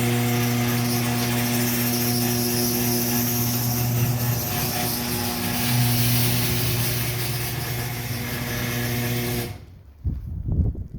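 A steady machine hum with a hissing rush, holding one pitch, that cuts off suddenly near the end, followed by a few low thumps.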